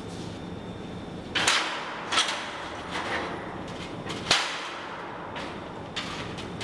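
A tall stepladder being shifted across the floor and climbed: about five sharp knocks and clatters, the loudest a little past the middle and a smaller one near the end.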